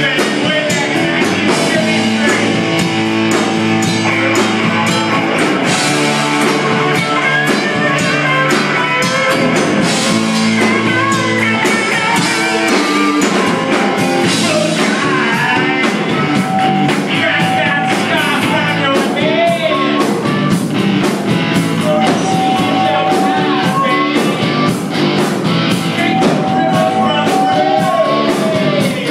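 Live rock band playing loud electric guitars over a drum kit, with a lead line that bends and wavers in pitch and holds long notes near the end.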